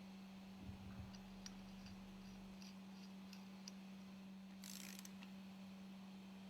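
Near silence: a faint steady hum with a few faint ticks and a soft hiss of noise near the end.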